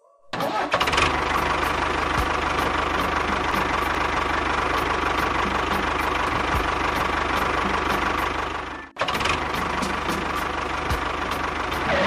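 Engine running sound for a mini model tractor, steady and even. It cuts out suddenly about nine seconds in and starts again straight away.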